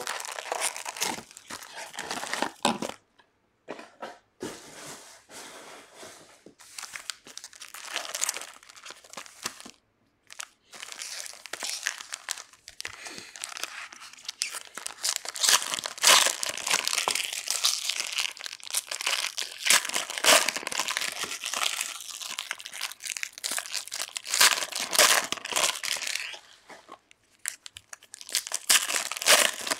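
Foil trading-card packs crinkling and tearing as they are handled and opened, in irregular crackly bursts with a few short pauses.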